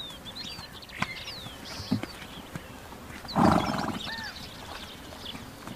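A horse gives one short, loud, rough call about three and a half seconds in, over steady bird chirping, with two sharp knocks in the first two seconds.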